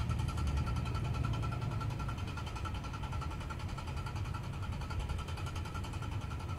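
A burning car's engine still running at a steady idle while the engine compartment smokes heavily, a steady low rumble with a thin steady whine above it.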